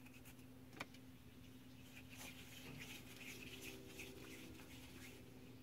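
Near silence: faint soft rustling of hands working floured play dough, with a light click about a second in, over a low steady hum.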